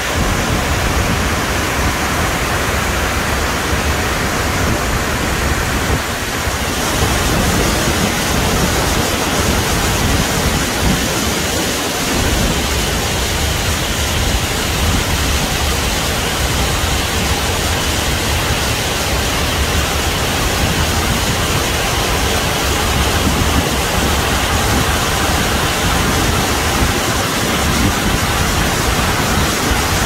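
McArthur-Burney Falls pouring into its plunge pool: a loud, steady rush of falling water. The hiss grows a little brighter about seven seconds in.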